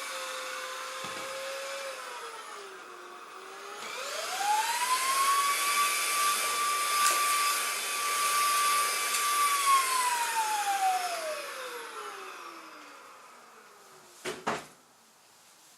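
Samsung PowerGun 150 cordless stick vacuum running in turbo mode, its motor whining. The pitch dips about two seconds in, climbs about four seconds in to a higher, louder steady whine, then falls away from about ten seconds in until the motor fades out. Two sharp knocks come near the end.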